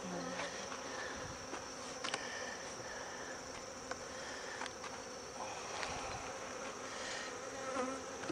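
A colony of honeybees buzzing steadily around an open hive, with a few light clicks as a hive tool and wooden frames knock together.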